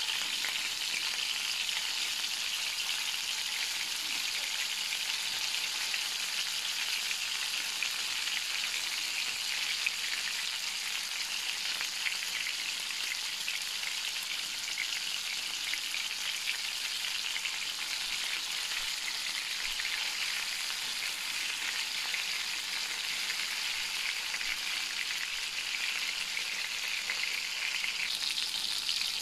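Cubes of fresh pork sizzling steadily in hot oil in a frying pan, searing to a golden-brown crust.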